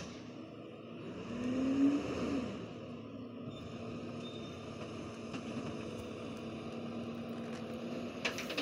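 Garbage truck's diesel engine running in the distance, revving up and back down about two seconds in, then holding a steady drone.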